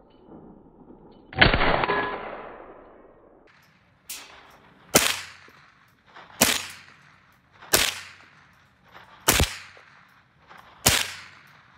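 Tippmann M4-22 .22 LR semi-automatic rifle firing: a louder bang with a long ringing tail about a second and a half in, then five sharp shots roughly every one and a half seconds, each trailing off in an echo.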